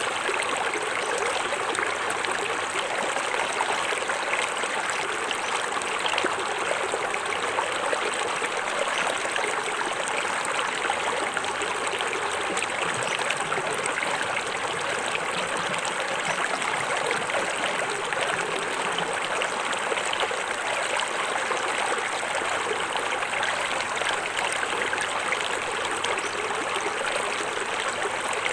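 Small forest waterfall: water pouring and splashing steadily over rocks into a stream.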